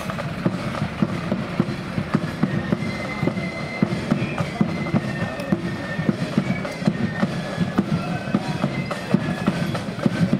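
Marching flute band playing a march: snare drums beating in dense, steady strokes under a high flute melody.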